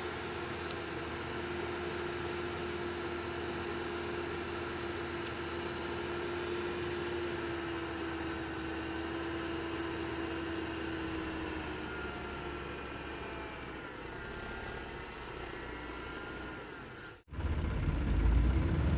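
Heavy diesel vehicle engine running steadily, with a held whine over the engine noise. About 17 seconds in it cuts off suddenly and a louder, lower rumble starts.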